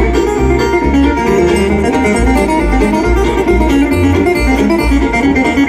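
Bluegrass band playing live, an instrumental passage of picked banjo and guitar over moving bass notes, with no singing.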